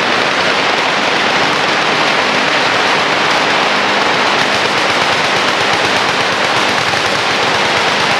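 Many machine guns firing at once on a firing line, their shots merging into one continuous, unbroken rattle.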